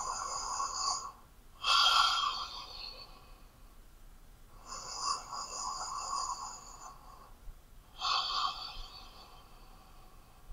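A person breathing heavily through an open mouth: four slow, airy breaths, each one to two and a half seconds long with short pauses between. The second breath is the loudest and the third is the longest.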